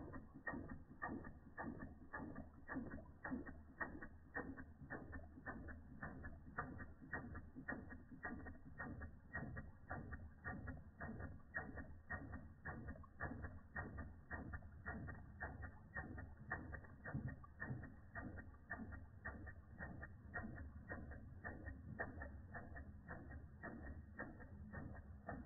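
Replica Ernst Plank tripod toy steam engine running steadily under steam, its small oscillating brass cylinder and flywheel making a fast, even clicking beat.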